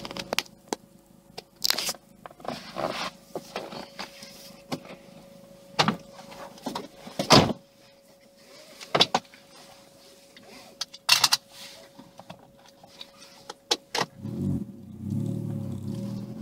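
Cabin sound of a Vauxhall Astra VXR's 2.0-litre turbocharged four-cylinder through a de-cat, non-resonated 2.5-inch exhaust. The engine idles quietly with a faint steady whine, under scattered knocks and clicks. About 14 seconds in, the exhaust note rises in pitch as the car pulls away.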